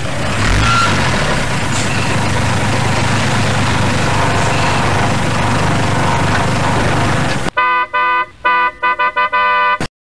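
Motor vehicle engine idling, a steady low hum under broad noise. About seven and a half seconds in, it cuts to car horns honking in short, overlapping blasts, as in a traffic jam.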